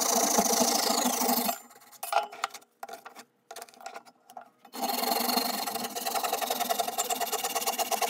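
Hand saw cutting a block of black cherry wood clamped in a bench vise: sawing for about the first second and a half, a pause with a few light knocks, then steady sawing again from about five seconds in.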